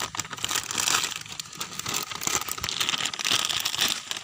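Gift wrapping crinkling, rustling and tearing as it is pulled open by hand, in a continuous run of crackles.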